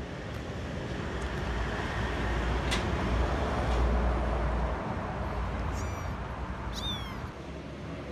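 A vehicle passing on the street, its low rumble swelling to a peak about halfway through and then fading. Near the end a young kitten mews twice in short, high cries.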